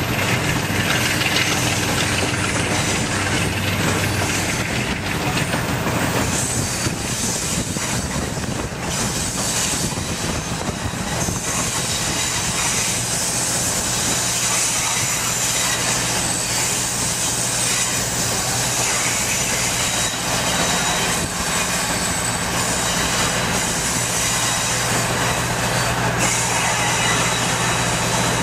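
Excursion passenger train in motion, heard from aboard: a steady rumble and rattle of the car running on the rails, with a low steady drone underneath.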